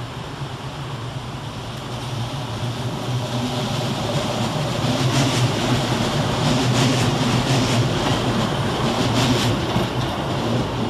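Class 150 Sprinter diesel multiple unit running in, its underfloor Cummins diesel engine humming and wheels rolling on the rails, growing louder as it draws close. A run of sharp clicks and rattles comes from the wheels on the track as it passes, about five to nine seconds in.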